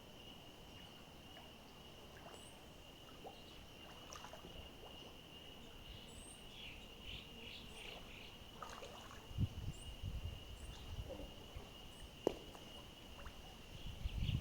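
Faint riverside ambience: a steady high-pitched insect drone, with scattered short high chirps of small birds. Low gusts of wind rumble on the microphone in the second half.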